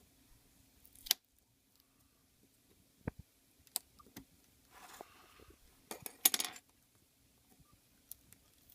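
A few separate sharp clicks and light clinks of small tools and parts handled on a work surface while preparing to pry out an iPhone battery. The loudest click comes about a second in, and a short ringing cluster comes around six seconds in.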